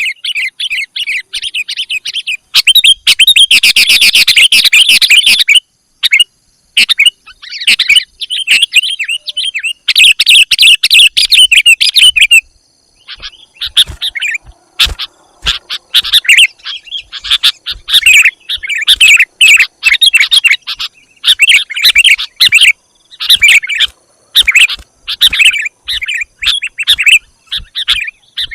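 Sooty-headed bulbuls (kutilang) calling: quick, bubbly chattering phrases in repeated bursts with short pauses between them, played loud as a lure call for wild kutilang.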